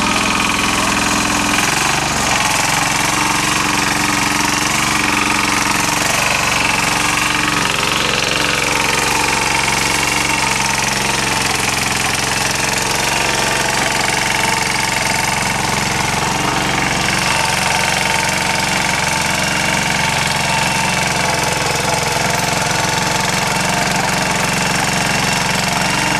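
Engine of a Yağmur YET-510 walk-behind rotary tiller running steadily under load as its tines churn through garden soil, its note shifting about two seconds in.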